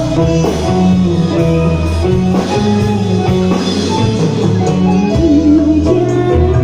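Dangdut music played by a band, loud and continuous, with a wavering melody line over the accompaniment near the end.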